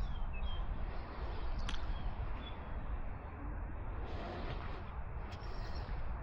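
Outdoor ambience: a steady low rumble of wind on the microphone, with a few short bird chirps in the first couple of seconds.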